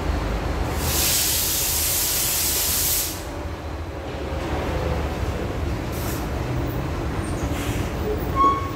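Steady low machinery rumble, with a loud hiss for about two seconds near the start and a brief squeal near the end.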